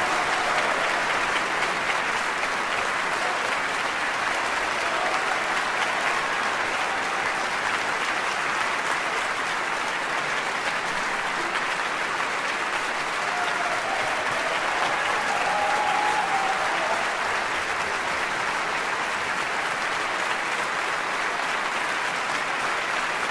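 Sustained applause from a concert-hall audience and the orchestra's players, holding at a steady level throughout.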